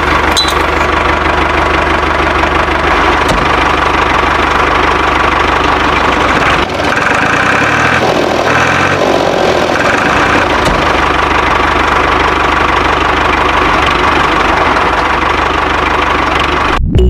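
An engine running steadily, with a brief drop and change in its sound about seven seconds in.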